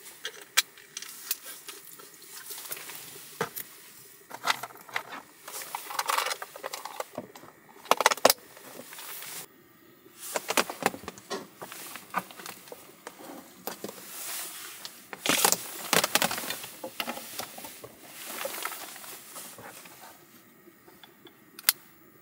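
Handling of a small plastic electric lunchbox rice cooker: scattered clicks, taps and rustles as its lid is pressed on and clipped shut and its power cord is handled.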